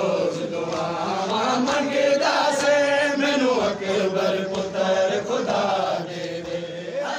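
Men's voices chanting a noha, a mourning lament, together in unison, with hands striking chests in matam.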